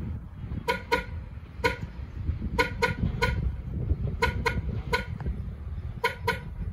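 2001 Ford Expedition's anti-theft alarm sounding the horn in short honks, about two a second and some in quick pairs, over a low rumble.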